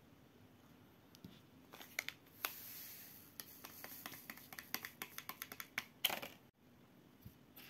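A sachet of dry yeast crinkling as it is torn open and emptied into a pot of water: a brief hiss about two and a half seconds in, then a run of sharp crinkly clicks and a louder rustle near the end.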